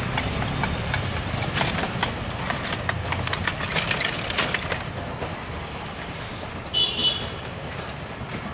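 Passenger train coaches rolling away along the track: a low rumble with a clatter of wheels over rail joints, fading as the train draws off. A brief high-pitched chirp comes about seven seconds in.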